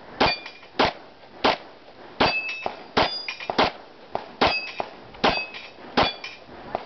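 A string of Glock pistol shots fired at steel plates, about one shot every two-thirds of a second, many followed by the high metallic ring of a struck plate. Fainter shots sound in between.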